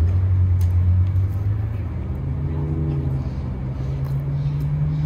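A motor vehicle's engine running, a loud low hum that starts suddenly and rises in pitch about two seconds in as it speeds up, then holds steady.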